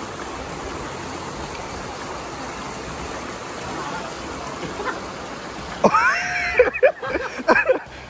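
Steady rush of flowing river water with light splashing from someone wading waist-deep. About six seconds in, loud voices break in, calling out.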